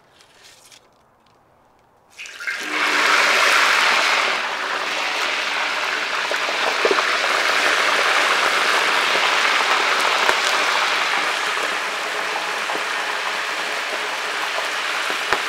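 Split spiny lobster halves deep-frying in a wok of hot pork lard at about 350°F: the fat starts sizzling loudly about two seconds in as the lobster goes in, loudest at first, then keeps up a steady bubbling sizzle.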